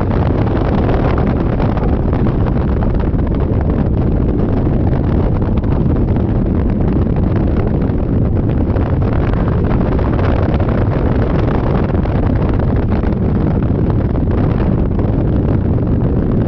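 Loud, steady wind buffeting the microphone on a Yamaha Majesty 400 maxi-scooter under way, with the vehicle's running noise mixed in underneath.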